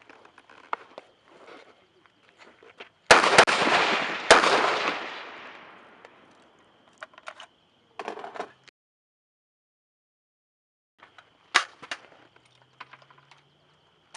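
Two shots from a Stag Arms AR-15 rifle about a second apart, each ringing out in a long echo. A few short clicks follow several seconds later.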